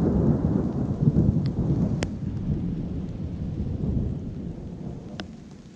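Thunder rumbling low, loudest in about the first four seconds and then fading away, with a few sharp ticks scattered through it.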